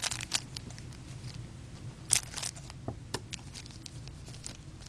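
Hockey trading cards and their pack wrapper being handled: a string of small clicks, rustles and crinkles, the loudest a short rustle about two seconds in.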